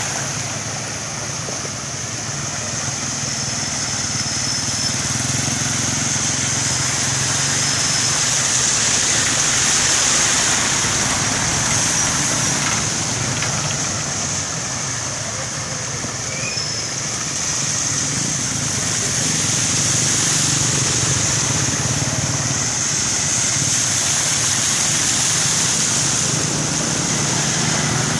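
A motor engine running steadily, with a constant high hiss over it.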